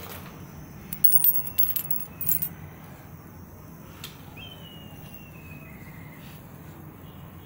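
Metal coins clinking and rattling against each other and a hard stone floor: a quick cluster of sharp, ringing clinks lasting about a second and a half, then a single light clink.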